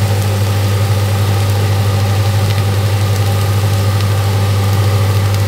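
A kitchen appliance running with a loud, steady low hum under a constant hiss.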